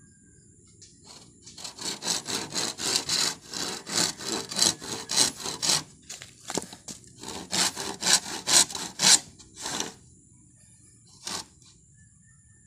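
Hand saw cutting through a green bamboo pole in quick back-and-forth rasping strokes, about three a second, with a short pause about six seconds in and one last stroke near the end.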